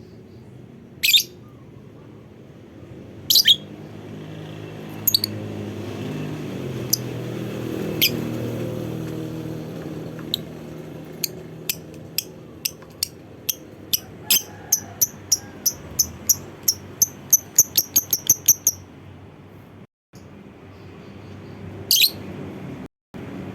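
Lovebird calling: a few sharp, shrill single chirps spaced out, then a long series of about twenty squeaky chirps that speed up into a rapid chatter (the 'ngekek'). A low background rumble runs underneath.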